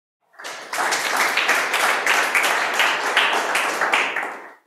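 Audience applauding, many hands clapping together. It starts about a third of a second in and dies away just before the end.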